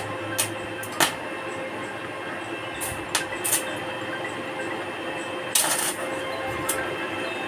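Stick (arc) welding: the arc crackling steadily over a steady electrical hum, with several sharp snaps and a longer burst about two-thirds of the way through.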